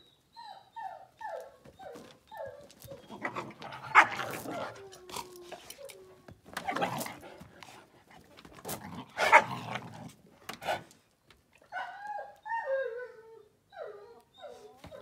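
Dogs whining, in runs of short, falling whimpers at the start and again near the end. Three louder, rougher bursts of dog noise come in between.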